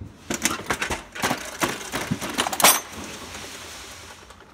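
A rusty red steel cantilever toolbox being unlatched and opened, its trays of loose sockets, spanners and screwdrivers rattling and clinking. There is a quick run of metal clanks, the loudest a ringing clatter near the middle, then it goes quieter.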